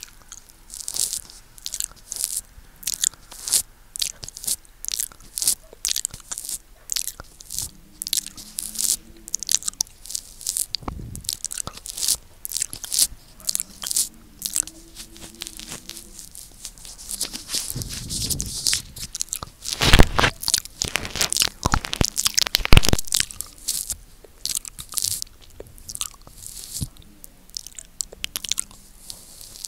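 Close-miked wet mouth sounds on a microphone: licking and lip smacking, with many sharp, crackly clicks each second. Two louder thumps come past the middle, the mouth pressing on the mic.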